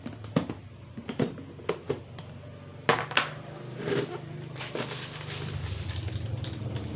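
Plastic snap-lock food container being opened: a run of sharp clicks as the lid's latches are unclipped, the loudest pair about three seconds in. Then dry, hard hide-glue flakes rattle as a hand stirs them, and a low steady hum comes up near the end.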